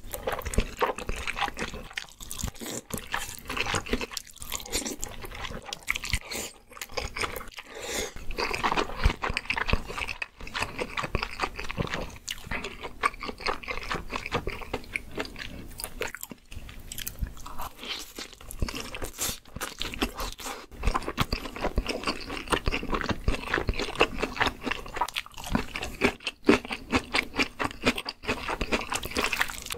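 Close-miked eating sounds: cream jjamppong ramen noodles slurped and chewed, with crunchy bites and chewing of fried side dishes such as cheese sticks.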